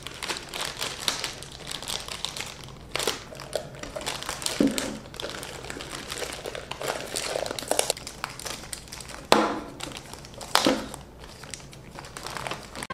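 Plastic zip-lock parts bags crinkling and rustling as they are handled and pulled open, with a few louder, sharper crackles along the way.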